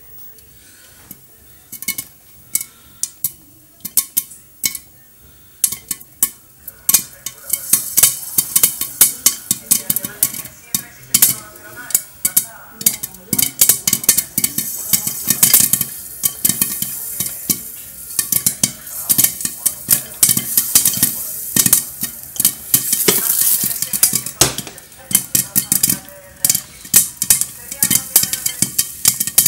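Popcorn kernels popping in an oiled frying pan under a glass lid: a few scattered pops at first, building about seven seconds in to fast, dense popping over a steady sizzle.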